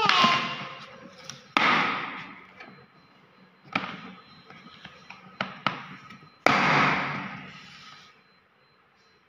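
A few sudden hits, each fading away over a second or two, with sharp clicks between them, the loudest hit about two-thirds of the way through.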